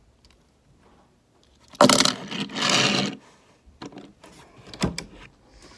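Handling noise: a loud rustle and scrape lasting about a second, then a few light clicks and a sharp knock as die-cast model cars are moved and set down on a table.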